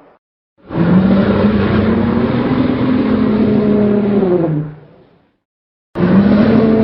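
Tyrannosaurus rex roar sound effect: one long, low, growling roar of about four seconds that drops in pitch as it dies away, then a second roar begins near the end.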